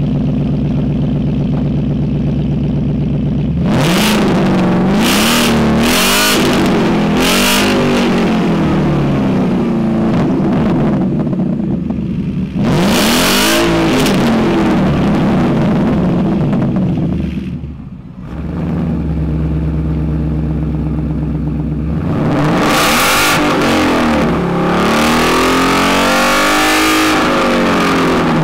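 Ford Mustang GT's 5.0-litre V8 through an aftermarket Solo Mach XV exhaust, idling and then revved in a string of quick blips and longer revs, dropping back to idle between them. Near the end the sound is of a second Mustang GT V8, fitted with a Roush axle-back exhaust, being revved.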